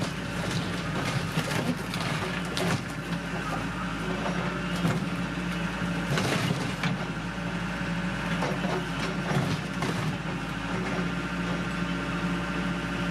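Case backhoe's diesel engine running steadily under load while its boom works behind a shed, breaking the building apart. Irregular cracks and knocks of splitting wood and plaster sound over the engine, the strongest about two and a half, five, six and nine and a half seconds in.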